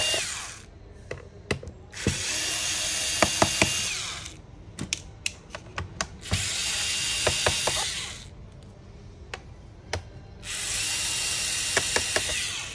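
Small electric screwdriver backing screws out of a laptop's bottom cover. It runs in bursts of about two seconds, three times, with a steady whine, and sharp little clicks fall in the pauses between runs.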